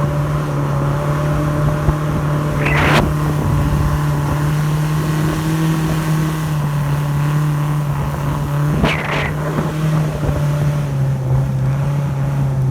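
Speedboat engine running steadily at one pitch, a loud, even hum. Two short noisy bursts break through, about three and nine seconds in.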